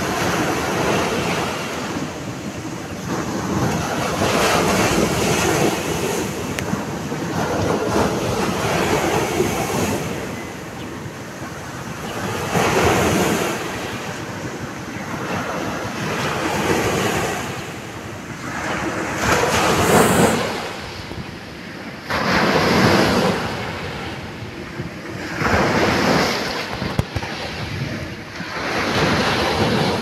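Small sea waves breaking and washing up a dark sand-and-gravel beach, the surf swelling and fading in repeated surges every few seconds.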